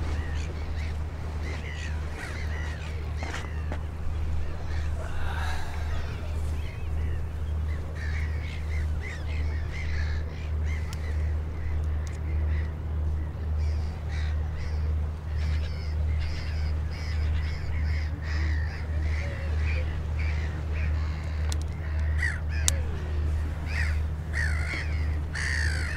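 Birds calling now and then over a steady, slowly pulsing low hum.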